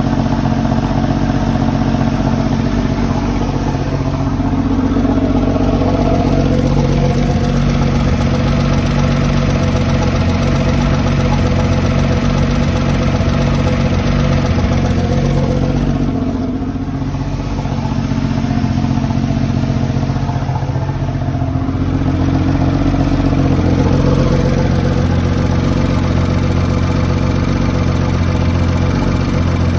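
Porsche 993's air-cooled flat-six engine idling steadily with a lifter tick, the hydraulic valve lifters ticking. The level dips slightly a little past halfway.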